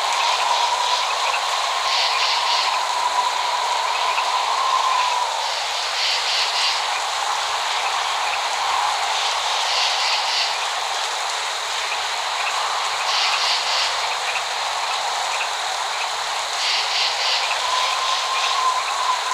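Steady rain hiss, with short clusters of high chirping calls every three to four seconds and a long, thin whistling tone for the first few seconds and again near the end. No thunder.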